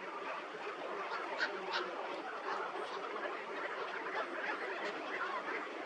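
A flock of birds calling together in a dense, continuous chatter, with a few sharper calls standing out about a second and a half in.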